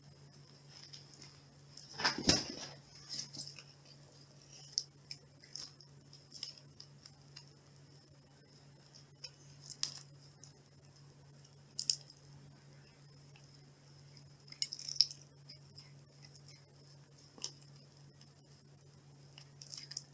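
A cat playing with a crow feather held in a hand, batting and biting at it: scattered small clicks and soft rustles, with a louder scuffle about two seconds in, over a faint steady low hum.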